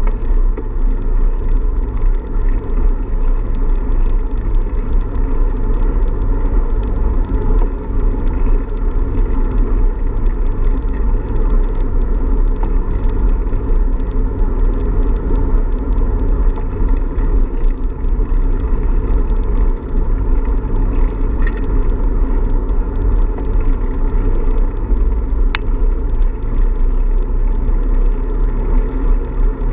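Steady wind buffeting and road rumble on the microphone of an action camera carried by a moving cyclist, heaviest in the deep low end. A single sharp click comes near the end.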